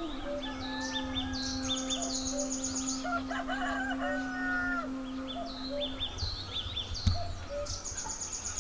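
A rooster crows once, about three seconds in, among small birds chirping and trilling throughout. A low steady hum lies under the first six seconds.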